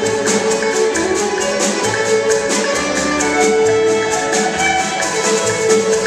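Solo fiddle playing a fast reel over a chamber string orchestra, with held string notes beneath a quick, even pulse.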